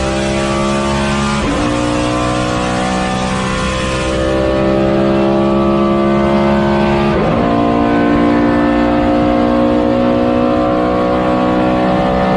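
Engine sound effect: a steady, loud engine drone whose pitch creeps slowly upward, briefly dipping sharply and recovering about a second and a half in and again about seven seconds in.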